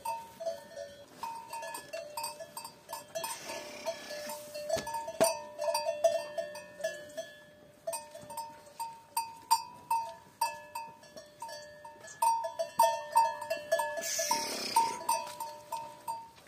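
Cowbells on a small herd of cattle clanking irregularly as the cows move and feed, with short ringing strikes at the same few pitches. A brief rushing noise comes about four seconds in and again near the end.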